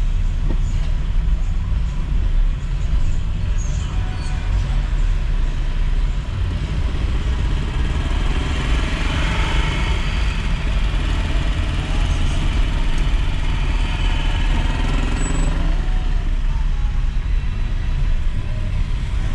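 Steady low rumble of a car's engine and tyres, heard from inside the cabin while driving slowly through town traffic, with a brighter hiss of street noise swelling about halfway through.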